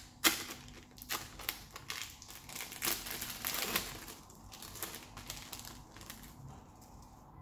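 Clear plastic film crinkling as a processed cheese slice is peeled and pulled out of its wrapper: a run of sharp crackly rustles that thin out after about four seconds.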